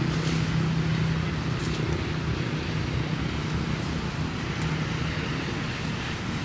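Steady low engine hum of road traffic, getting slightly quieter as it goes.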